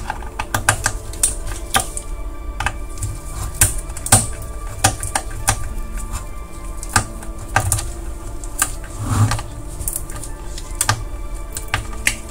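Irregular small clicks and taps of a screwdriver and loose screws as screws are taken out of an Xbox console's power-supply section, over steady background music.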